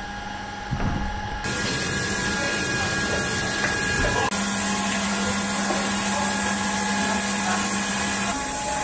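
A loud, steady rushing noise with a low hum and a higher whine under it, cutting in suddenly about a second and a half in. The hum changes once more around the middle.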